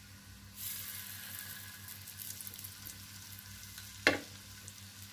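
Oil sizzling as a raw chana dal tikki (lentil patty) is laid into a hot shallow-oiled pan beside another: the sizzle jumps up about half a second in, then slowly settles. A single sharp tap comes near the end.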